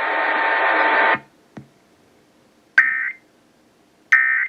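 A steady hiss of broadcast static that cuts off about a second in, then a faint click. Then two short, buzzy digital data bursts about a second and a half apart: the EAS end-of-message (EOM) code signalling that the alert is over.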